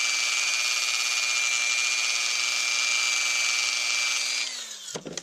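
Dremel rotary tool with a buffing pad running steadily against the side of a Glock trigger bar, polishing the metal: a steady high whine over a rubbing hiss. About four and a half seconds in it is switched off and spins down, its pitch falling before it stops.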